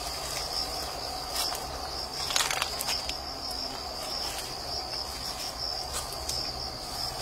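Insects chirring in a steady, high, slightly pulsing trill. A brief rustle of leaves and twigs comes about two and a half seconds in as vine branches are handled.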